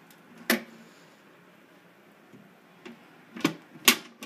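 Three sharp clicks from the opened street light fixture being handled, its housing and glass lens door knocking: one about half a second in, then two close together near the end, the last the loudest.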